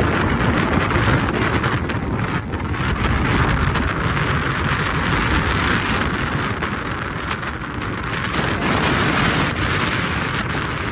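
Wind buffeting the microphone of a moving car, over steady road and engine rumble.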